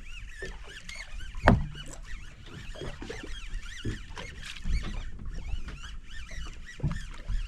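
Many short, high, arching chirps keep sounding over a low rumble, with a sharp knock about a second and a half in and a few softer knocks later.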